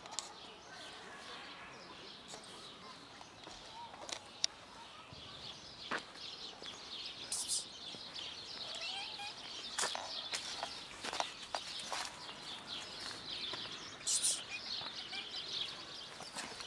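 Small birds chirping continuously, a dense chatter that thickens a few seconds in, with scattered sharp clicks and taps and two short rustling scuffs.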